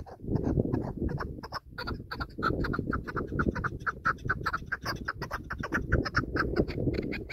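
Chukar partridge calling in a fast run of short, repeated clucking notes, about four or five a second, with a low even rumble underneath.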